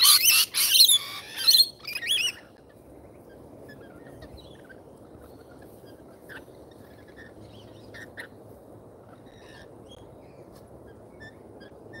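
Rainbow lorikeet giving a rapid run of loud, harsh screeching calls that stops about two seconds in, followed by only faint, scattered bird chirps.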